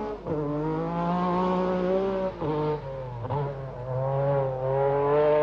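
Group B rally car engine running hard at high revs on the stage, its pitch holding steady with brief dips a few times, then climbing again near the end.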